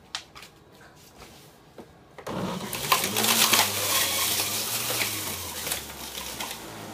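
Centrifugal fruit and vegetable power juicer's motor switching on about two seconds in and running with a steady hum and a dense grinding whirr as produce is shredded, easing off somewhat near the end. A few faint clicks come before it starts.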